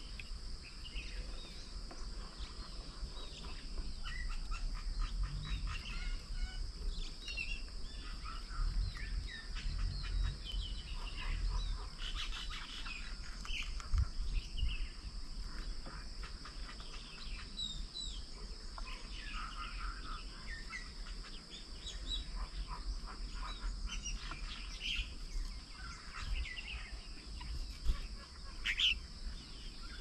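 Several small birds chirping and calling, short calls one after another, over a steady high-pitched hum and a low rumble.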